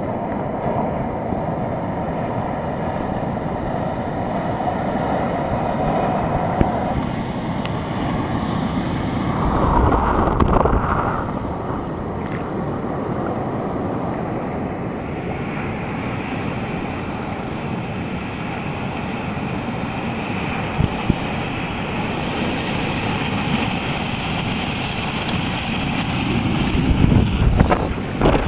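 Ocean surf and wind buffeting the microphone in a steady rush, with a louder surge about ten seconds in. Near the end come a few sharp knocks and splashes.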